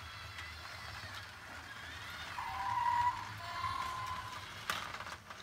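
LEGO Duplo app-controlled train engine running on plastic track as it backs into a siding. Its small electric motor whines at a steady high pitch from about two seconds in, and there is a sharp click near the end.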